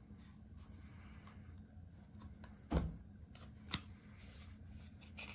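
Handling a small hard-plastic lens filter case: a soft thump a little under three seconds in, then a sharp plastic click about a second later as the case is snapped open, over a low steady hum.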